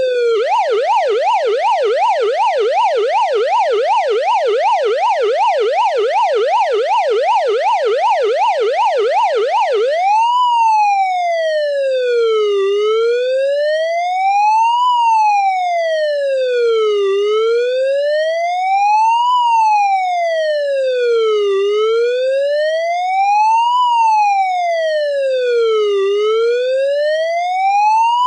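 Police car siren sounding close. It opens on a fast yelp, about three up-and-down sweeps a second, and switches about ten seconds in to a slow wail that rises and falls every four to five seconds.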